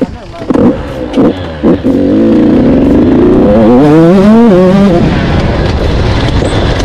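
Two-stroke engine of a KTM 85 motocross bike revving hard: a few short bursts of throttle in the first two seconds, then continuous full-throttle running with the pitch climbing and dropping as it accelerates.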